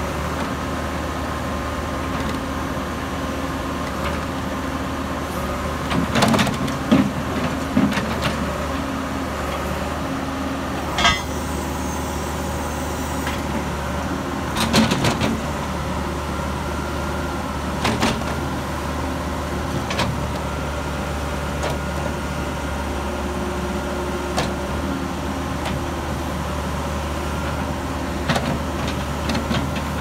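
John Deere 310SE backhoe loader's diesel engine running steadily while the backhoe boom, bucket and stabilizers are worked. Short metallic clanks and knocks from the moving backhoe come several times, most in a cluster a few seconds in and again near the end.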